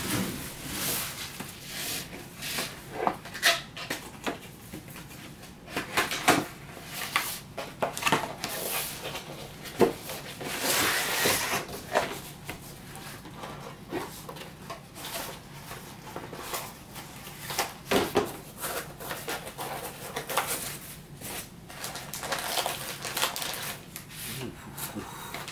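Cardboard graphics-card box being handled and opened: the inner box slid out of its sleeve and the lid and foam lifted, giving irregular taps, scrapes and rustles. Near the end the card is lifted out in its plastic anti-static bag.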